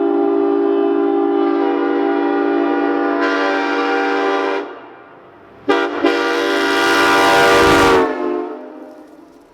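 Train-style multi-note air horn sounding a long held chord that stops about four and a half seconds in, then two short toots and a second long blast that cuts off about eight seconds in.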